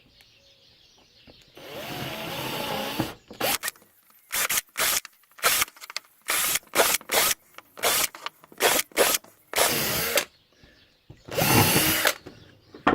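Electric drill running: one longer burst, then a quick string of many short trigger bursts, and a last longer burst near the end, its motor pitch rising and falling as it spins up and down.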